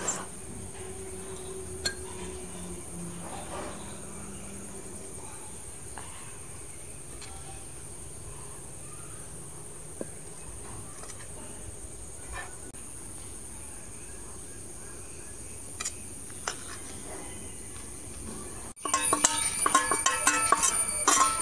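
Insects buzzing steadily in a high, even tone, with a few faint clicks of a spoon against a ceramic jar. Near the end, background music with plucked strings starts abruptly.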